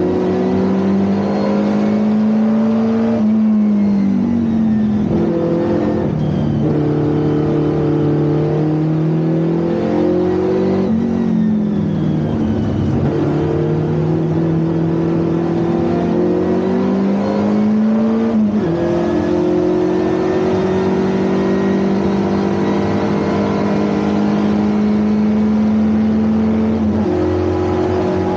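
Ford Anglia 1200 race car's 1.2-litre four-cylinder engine being driven hard on track. Its pitch climbs steadily through long pulls and drops sharply several times between them, as the driver shifts gear or lifts off.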